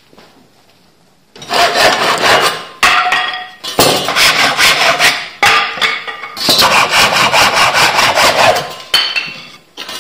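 Handsaw with a straight Japanese-style pull-saw blade cutting wooden strips. It starts about a second and a half in and goes in several runs of quick, rhythmic strokes, with short breaks between cuts.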